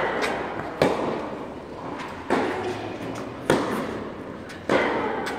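Tennis balls struck hard by rackets in a baseline rally, a sharp crack about every second and a half, five times, each ringing out in the echo of a large indoor hall.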